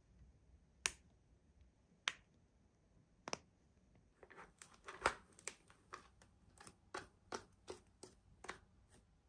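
Light clicks of small plastic hair clips being pressed and snapped into a plush doll's hair: a few single clicks about a second apart, then a quicker run of clicks in the second half.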